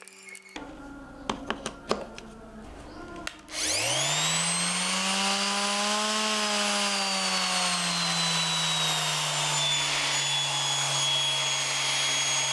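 A few clicks, then the repaired electric orbital sander is switched on about three and a half seconds in: its motor whines up to speed and runs on at a steady pitch. The speed holds stable, a sign that the fix of cleaned carbon brush contacts and a freshly lubricated bearing has cured its surging RPM.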